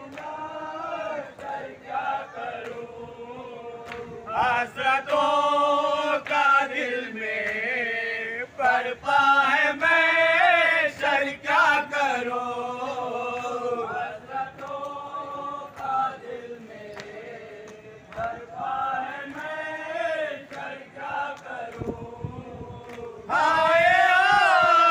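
Men chanting a noha, a Shia mourning lament, with one man's loud reciting voice leading and other voices joining in. It gets suddenly louder near the end.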